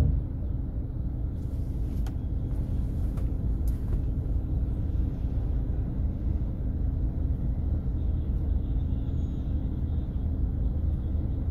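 Steady low rumble of a vehicle on the move along a road, with a constant low hum under it and a few faint clicks in the first few seconds.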